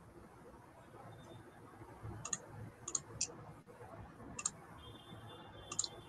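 About five faint, sharp computer mouse clicks at irregular spacing, starting about two seconds in, with a couple coming as quick double clicks. They are the clicks of screen sharing being restarted in a video call.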